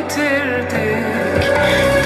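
Music: a wavering, ornamented melody line over steady low notes.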